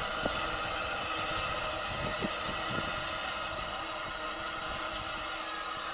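Peckett 0-4-0 tank steam locomotive simmering as it moves slowly off: a steady hiss and hum with a few faint knocks about two seconds in.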